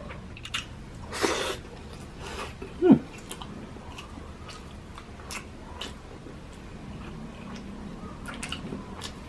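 Close-up mouth sounds of someone eating crispy lechon sisig: chewing and crunching with scattered small clicks. A crunchy burst comes a little over a second in, and a brief falling squeak about three seconds in.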